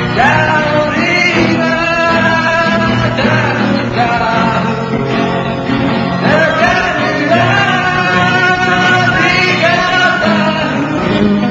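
Live band playing a Malay pop song: a sung melody over guitar, bass and drum accompaniment.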